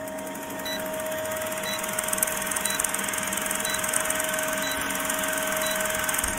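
Old film projector sound effect: a fast, steady mechanical clatter with a constant hum, with a short high blip about once a second as the film-leader countdown runs.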